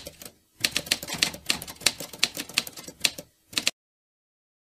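Typewriter keys clacking in quick, uneven strokes, about four or five a second, as a sound effect for lettering being typed out. The clacking stops suddenly a little past three and a half seconds in.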